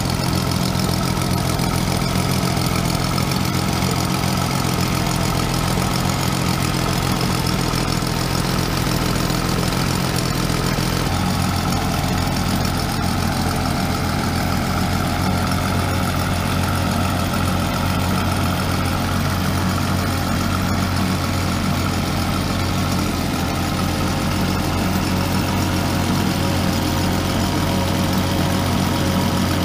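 Self-built 60 cm³ three-cylinder model ship's diesel engine running steadily at an even speed. Its low, even hum shifts slightly in pitch about eleven seconds in.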